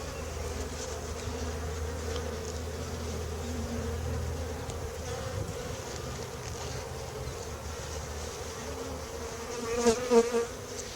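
Honeybees buzzing steadily around an opened hive during a frame inspection, with a few louder, closer buzzes about ten seconds in.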